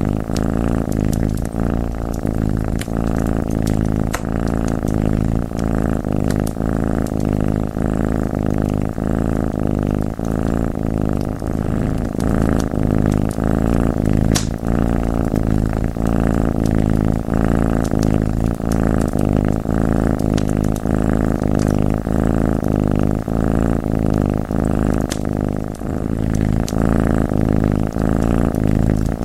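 Domestic cat purring loudly and continuously, close to the microphone, over the scattered sharp pops and crackles of a wood fire.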